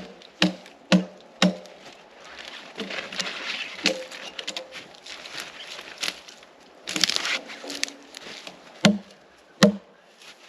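Hatchet chopping branches off a log: four quick strokes at about two a second, then a few spaced strikes with rustling of the branches between them, and two hard blows near the end.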